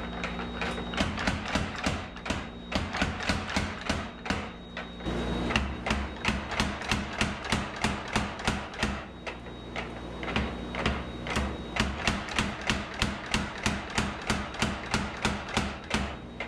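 Power hammer striking a red-hot steel billet in rapid, even blows, about five a second, over the steady hum of the hammer's motor. The hammering changes about five seconds in, when a second power hammer takes over.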